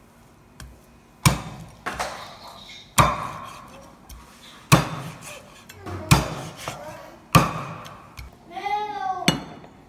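Meat cleaver chopping through raw chicken onto a wooden chopping block: about six heavy, sharp chops, irregularly spaced a second or so apart, each with a short ring-off.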